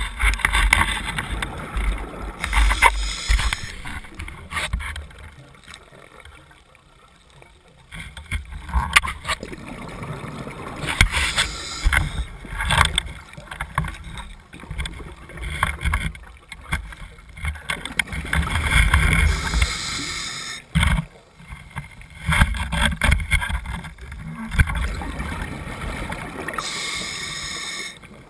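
Underwater sound through a camera housing: a steady rumble of water with scattered knocks. A scuba diver's regulator breathing is heard as a hissing, bubbling swell about every eight seconds.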